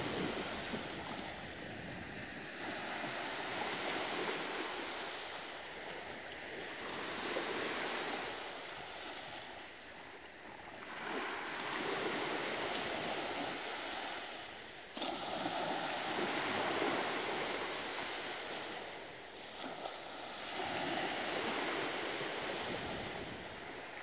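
Small waves washing onto a sandy shore from a calm sea, the wash swelling and fading every few seconds.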